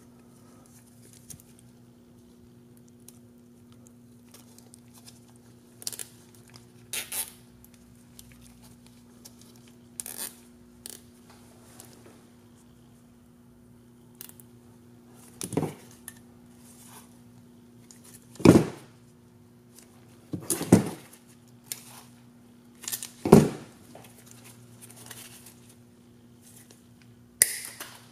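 Hand work on a drone frame part: light clicks and rustles, then about five sharp snaps in the second half, fitting zip ties being cinched and their tails cut off, over a steady low hum.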